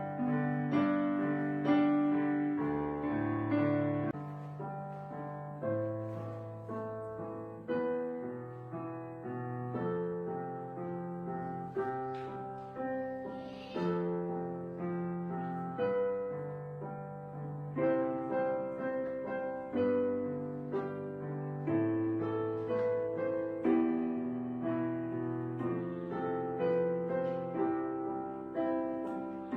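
Gentle background piano music, with chords and melody notes struck about once a second, each fading away after it sounds.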